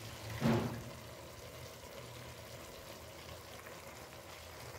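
Tomato masala with soya chunks sizzling faintly and steadily in an aluminium pot, with one brief louder sound about half a second in.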